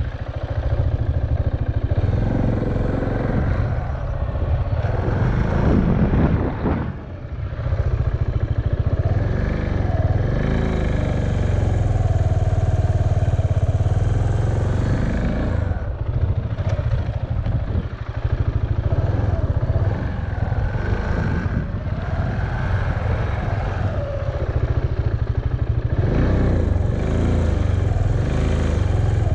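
KTM Duke motorcycle engine running while the bike is ridden, its pitch rising and falling again and again with the throttle. It is heard through a helmet-mounted camera over a steady low rumble.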